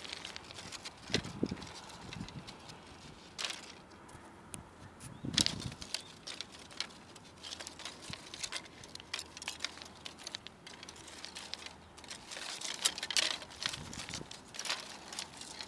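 Dry plant stems worked by hand against loose angular stones, giving an irregular run of crackles, clicks and scrapes, with several louder scraping bursts spread through.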